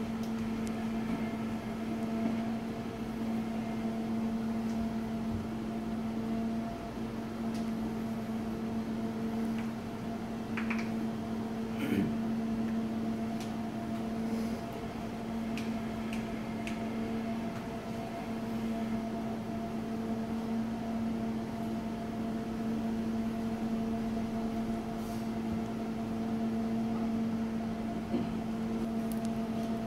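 Steady hum of a kitchen appliance motor, a low even drone, with a few faint light taps about eleven and twelve seconds in.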